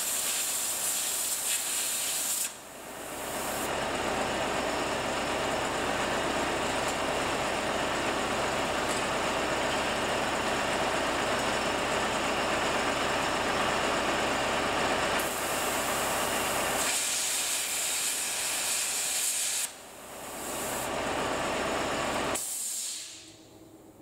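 A power tool cutting steel: a loud, steady hiss that stops abruptly twice and builds back up, then fades out near the end.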